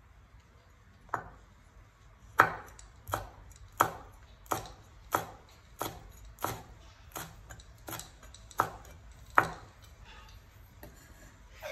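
Steel cleaver slicing red chilies on a wooden chopping board: about a dozen sharp knocks of the blade on the wood at an even pace, roughly three every two seconds, stopping near the end.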